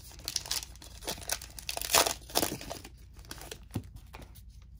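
A trading-card pack wrapper being torn open and crinkled by hand, a quick run of rips and rustles loudest about two seconds in, then quieter handling.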